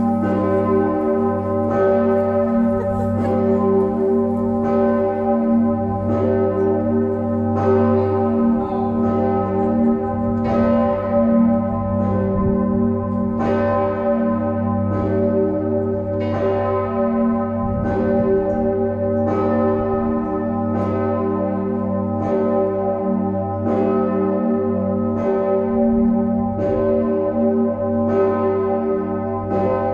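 Church bell Osanna, bell 1 of Leipzig's Nikolaikirche, with a strike note of g°, swinging and tolling on its own. Its clapper strikes about every second and a half, over a continuous ringing with a deep hum beneath.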